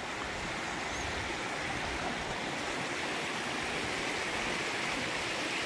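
Shallow mountain creek flowing over rocks, a steady rush of water.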